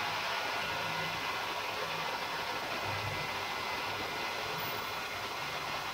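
A milling machine cutting an aluminium part with an end mill: a steady hiss from the nozzle aimed at the cutter, with a faint steady whine over it.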